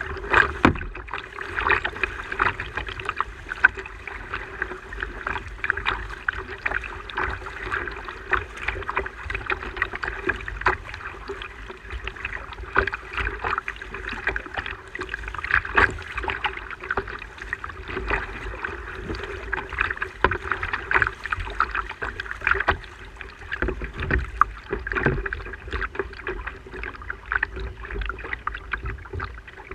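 Fishing kayak on the water: water splashing and slapping against the plastic hull, with many small irregular knocks.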